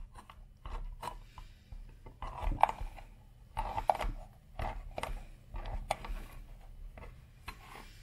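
A Victorinox Swiss Army knife's lever-type can opener cutting around the lid of a small empty tin can: a series of short, irregular metal-cutting strokes, about two a second, as the hooked blade is levered along the rim and pushed through the lid.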